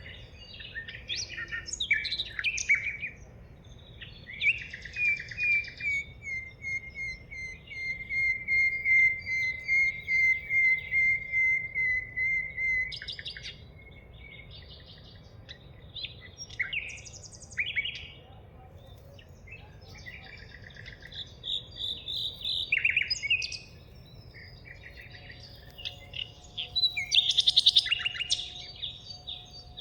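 Several wild birds singing and calling, with overlapping chirps throughout. From about four seconds in, one bird repeats a steady series of notes, about two or three a second, for nearly ten seconds.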